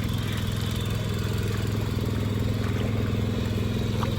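Power weeder's small engine running steadily at a constant speed.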